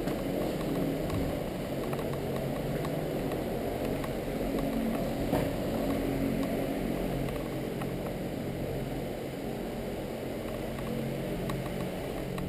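A steady low mechanical hum, with a few faint clicks, one a little over five seconds in.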